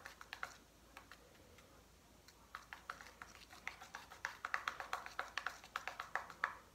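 Homemade slime being stirred with a small spoon in a plastic cup: faint, quick, irregular sticky clicks, a few at first, then a pause of about two seconds, then several a second.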